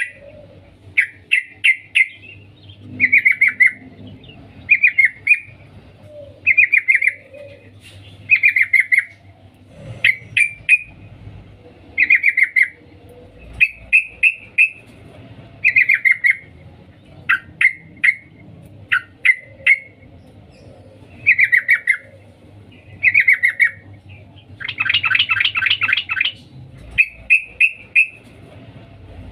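Female yellow-vented bulbul (trucukan) calling: short chattering 'cuk cuk' phrases repeated about every one to two seconds, with one longer, harsher call about 25 seconds in. This is the female's call to the male, used as a lure call.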